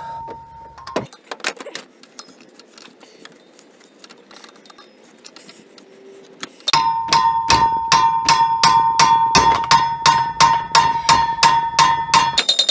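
Sledgehammer striking a wrench on a seized radiator fan clutch nut, each blow leaving a ringing metallic tone. A ring from the previous blows dies away about a second in; a few quieter seconds of light clicks follow, then a quick run of blows, about three a second, from about seven seconds in.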